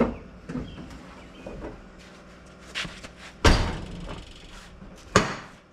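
Trunk lid of a 1946 Hudson being lowered with a few light knocks, then slammed shut with a loud bang about three and a half seconds in. Another sharp thud follows near the end.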